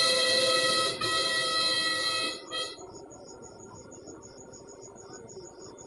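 A vehicle horn honks in three blasts, two long and one short, ending after about two and a half seconds. Insects chirp steadily in a fast, even rhythm throughout.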